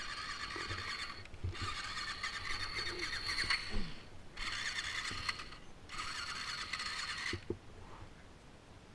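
Yamaha YZ450F single-cylinder four-stroke dirt bike engine, heard from a helmet camera, opened up in four bursts of one to two seconds with short breaks between them. It drops to a quieter idle near the end as the bike comes to a stop.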